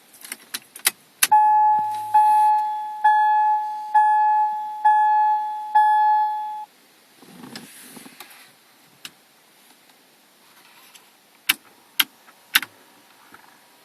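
A 1999 Ford Cougar's dashboard warning chime sounding six times, about once a second, then cutting off abruptly. Sharp clicks come before it, and three more sharp clicks come near the end.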